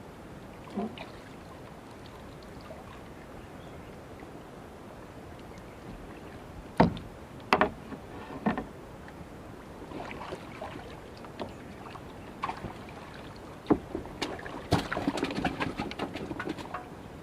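Scattered knocks and clatter over a steady faint background, a few single sharp knocks in the middle, then a quick run of clattering near the end.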